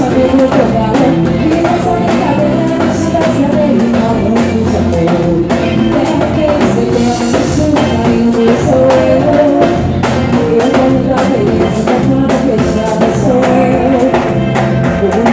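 Live band playing a sertanejo song: percussion from hand drums and drum pads keeps a steady beat under guitar and other melody instruments.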